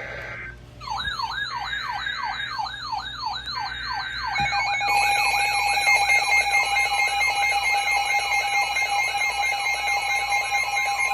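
Electronic emergency-alert siren tone: a falling, wailing sweep that repeats about three times a second. About four seconds in, a steady tone joins it, followed by several higher steady and pulsing tones, and the sound grows louder.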